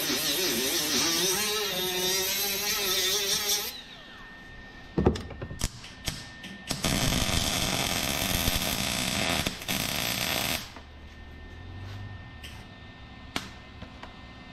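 A small handheld grinder grinds a steel bolt, its whine wavering in pitch under load, and stops about a third of the way in. A MIG welder then strikes a few short tacks, followed by a steady sizzling weld bead lasting about four seconds.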